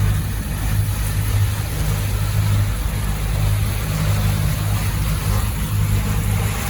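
A catamaran's engine running at a steady low hum, over the rush of wind and water.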